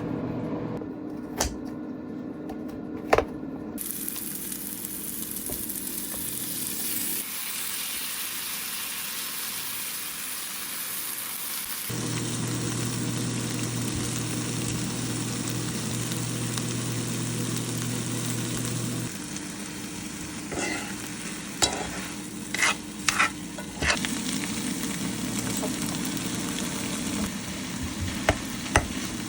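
Food sizzling in a frying pan, a steady hiss that starts about four seconds in, with utensils clicking and knocking against the pan several times near the end.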